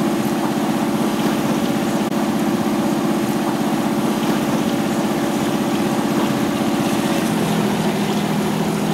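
Sailboat's engine running steadily under way, a continuous pulsing drone. Its note drops lower about seven seconds in.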